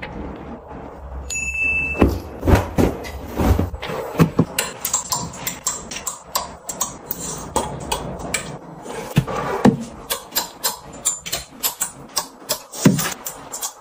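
Metal hooks and plastic bars of trouser hangers clicking and clacking against a metal wardrobe rail and each other as the hangers are hung up, a quick run of sharp clicks, several a second.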